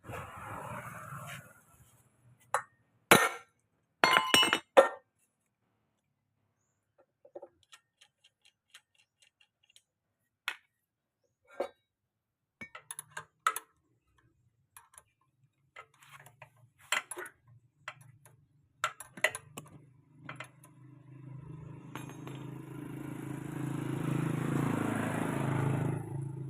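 Metal parts and hand tools clinking and knocking in short, scattered strikes while an Alkon pump engine is worked on. About two-thirds of the way in, a steady low machine hum starts and grows louder.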